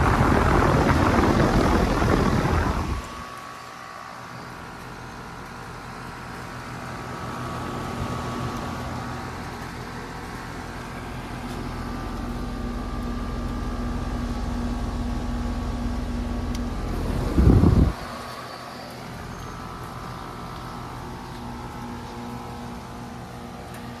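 Bryant outdoor air-conditioner or heat-pump condensing unit running: for the first three seconds its condenser fan blows air straight into the microphone from above the top grille. After that comes the unit's steady hum, with several held tones, and a second short rush of fan air about 17 seconds in.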